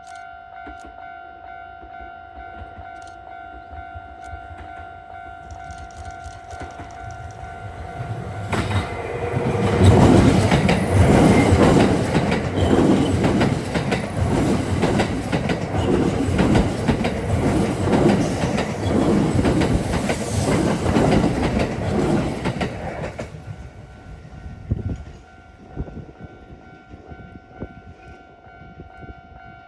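Kintetsu eight-car electric train, 1252-series and 9020-series units coupled, passing at speed for about fourteen seconds, its wheels clattering in a steady rhythm over the rail joints. Before and after it passes, the level crossing's electronic warning bell rings steadily.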